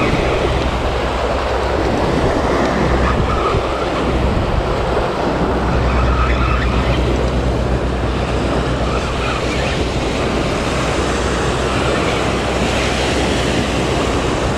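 Steady wind rumbling on the microphone, with small waves washing onto a sandy beach.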